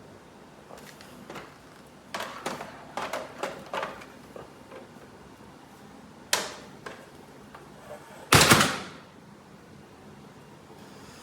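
A scattering of sharp clicks and knocks, most of them about two to four seconds in, then a louder short burst of noise about eight seconds in; the vacuum motor is not running.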